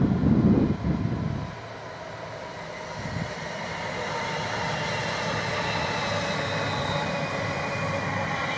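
London Midland Class 350 Desiro electric multiple unit passing, its motors giving a whine that falls slowly in pitch over the wheel and rail noise, growing louder as it goes by. A low, irregular buffeting rumble fills the first second and a half.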